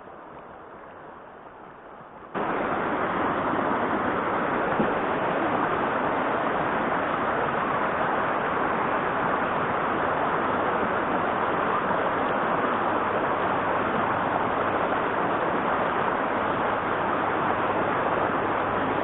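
Steady rush of flowing river water, quiet for the first two seconds, then suddenly much louder and steady from then on.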